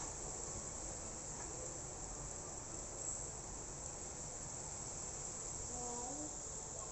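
Crickets calling in a steady, unbroken high trill over a low background hiss.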